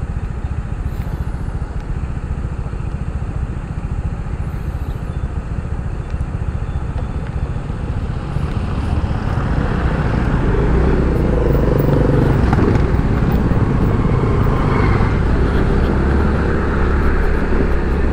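Motorcycle riding along a road: engine and road noise, growing louder about halfway through.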